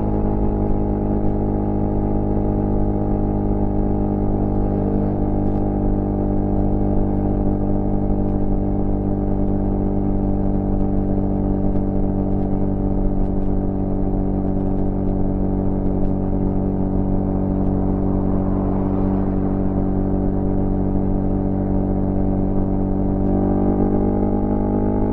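2006 Suzuki Bandit GSF 650's inline four-cylinder engine running steadily at idle through a cut-down Beowulf exhaust with no baffle. The engine speed rises slightly near the end.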